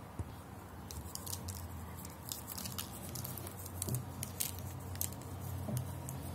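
Nigella seeds sprinkled by hand over egg-washed pastries on a paper-lined baking tray: from about a second in, a scatter of light, fine ticks as the seeds land. A low steady hum sits underneath.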